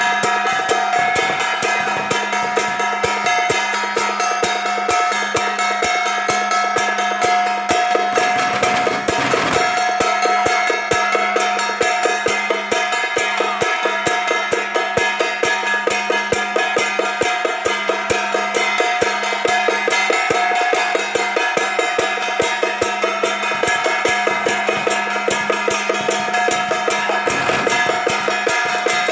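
Temple-procession drum-and-gong percussion: a drum struck in a fast, steady rhythm under continuously ringing gongs and cymbals, with a louder crash about nine seconds in.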